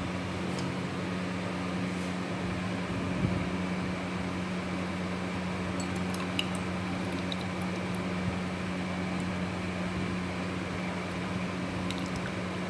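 Steady machine hum with a low drone, like a room fan or appliance motor running. A few faint light clinks come about halfway through and again near the end, as a steel ladle touches a steel kulfi mold.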